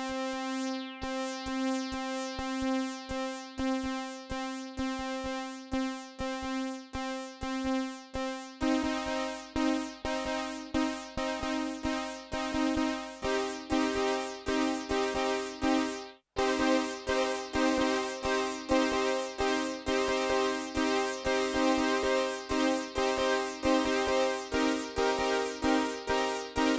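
Behringer Poly D analog synthesizer playing a rhythmic pattern of short, repeated notes. About eight seconds in, a low bass note joins. The pattern shifts a few seconds later, then cuts out for an instant about sixteen seconds in before carrying on.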